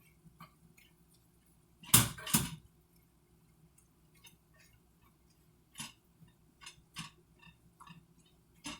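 Kitchen items being handled during meal prep: two sharp knocks close together about two seconds in, then scattered light clicks and taps.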